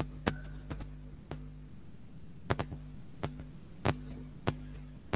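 Irregular sharp clicks, about ten of them, a few in quick pairs, over a low steady hum.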